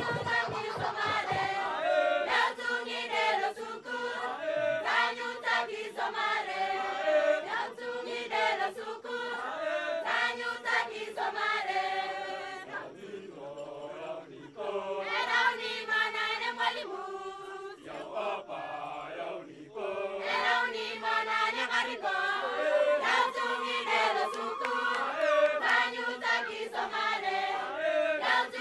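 A group of voices singing a song together as a choir, several pitches at once, with phrases breaking and starting again every second or so.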